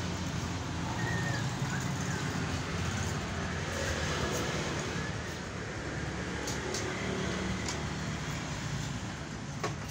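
Steady low background rumble, with a few faint clicks and taps.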